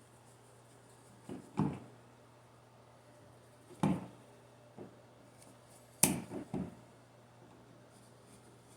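Scattered clicks and knocks of a wall outlet being unscrewed and pulled from its electrical box, the sharpest about six seconds in, over a faint steady hum.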